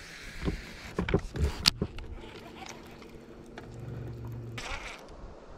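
Gear handling on a bass boat: a few sharp knocks and clicks in the first two seconds, then a faint steady electric hum from the trolling motor for about three seconds, with a brief rush of hiss near the end.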